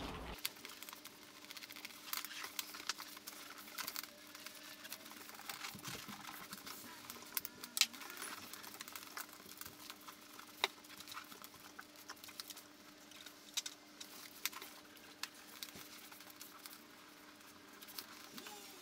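Faint rustling, scraping and light clicks of cloth car-seat upholstery and foam being handled and pulled over a seat-heater pad that is a tight fit, over a faint steady hum.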